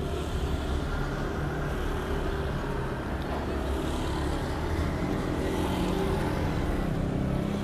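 Steady rumble of road traffic, the engines of passing vehicles.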